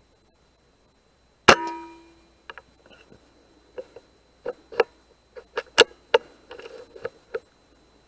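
A single sharp PCP air rifle shot about a second and a half in, with a brief metallic ring dying away after it. It is followed by a string of about a dozen shorter clicks and knocks.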